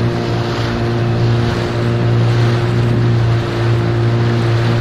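Outboard motor pushing a small inflatable dinghy at a steady speed, with a constant engine hum and water rushing at the stern.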